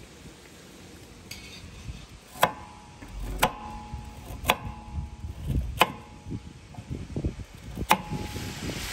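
Five sharp metallic clinks, roughly a second apart with a longer gap before the last, each leaving a brief ringing tone: a metal utensil striking metal cookware.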